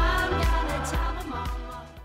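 Background music, fading out near the end.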